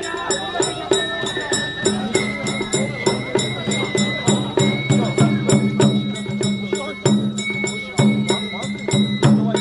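Japanese festival float hayashi music: a bamboo flute holding long high notes that step up and down, over drums and a small metal gong struck in a fast, even beat.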